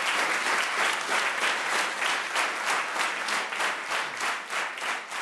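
Concert audience applauding. The dense clapping settles into rhythmic clapping in unison, about three to four claps a second, and grows fainter.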